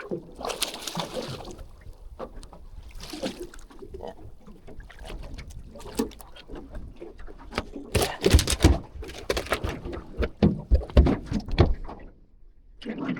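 Knocks and thumps on board a small boat, a quick clatter of them for a few seconds past the middle, with bursts of rushing wind noise before that.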